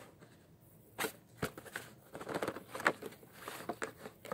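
A hard plastic card box being handled and turned over: scattered light clicks and crackles, with a sharper click about a second in.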